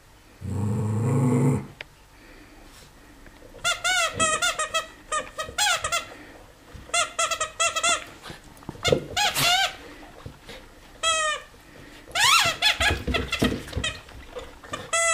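Red rubber bone squeaky toy squeaking in quick clusters of short, bending squeals as a Havanese dog bites and chews it, starting about four seconds in. Near the start there is a low rumbling noise lasting about a second.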